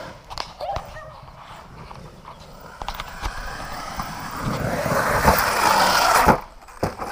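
Radio-controlled off-road truck driving fast over a dirt track toward the camera, its motor and tyres on the dirt growing louder over a few seconds, then cutting off suddenly about six seconds in as it jumps past.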